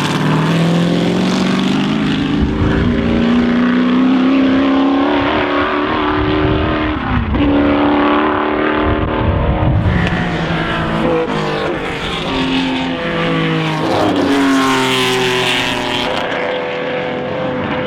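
Historic racing car engine at high revs, its pitch climbing and then dropping sharply at gear changes several times.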